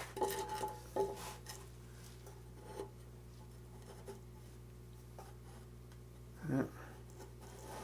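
Light taps, clicks and rubbing of cut wooden box pieces being handled and fitted together, mostly in the first second and a half, over a faint steady hum.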